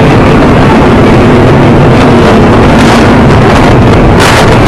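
Loud, steady jet engine roar from Blue Angels Boeing F/A-18 Hornets in flight, close to the limit of the recording. A brief surge of hiss comes near the end.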